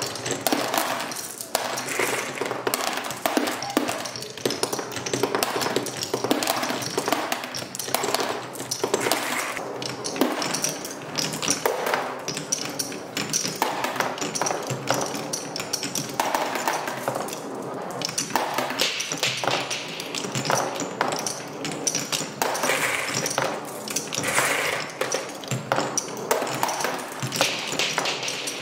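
Marbles rolling and clattering through a Hape Quadrilla wooden marble run, a continuous rumble of rolling with many quick clicks as the marbles knock against each other and the wooden spiral and track pieces.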